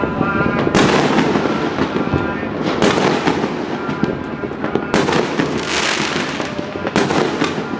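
Fireworks display going off without pause: a constant crackle and rumble of bursting shells, with four loud bangs about two seconds apart.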